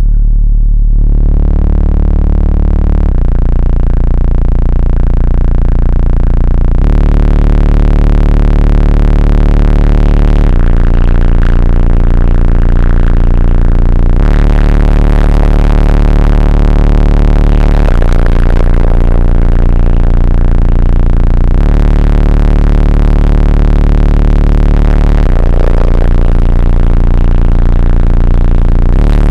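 Bass-heavy electronic music played very loud through a car audio system, Skar subwoofers and door speakers. Deep bass notes are held and change every few seconds.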